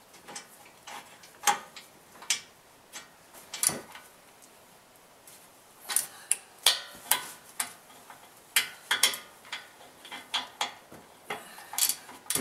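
Irregular metal clicks and clinks from a wrench turning in and tightening the front brake caliper bolts, louder clusters about six and nine seconds in.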